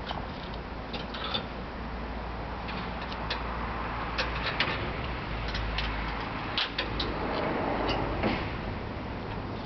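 Irregular metallic clicks and clanks from the crank handle of a Cramaro Loc-Rite side-roll tarp roller being gripped and worked, over a steady low background rumble.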